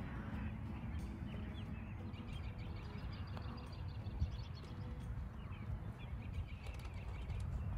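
Wind rumbling on the microphone, with birds chirping. About four seconds in, a single sharp tap: a putter striking a golf ball.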